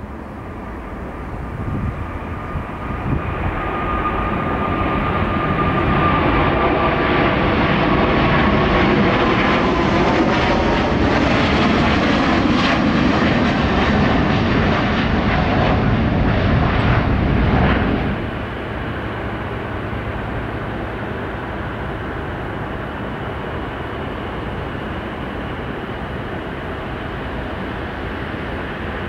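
Boeing 777-300ER's twin GE90 turbofans at takeoff power, building over the first few seconds and staying loud as the jet passes, with a falling whine. About 18 s in the sound cuts off suddenly to a quieter, steady jet-engine noise from an Airbus A350-900.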